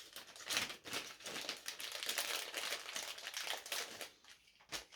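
Crinkling and rustling of a small plastic bag being handled among small parts, with a sharp click just before the end.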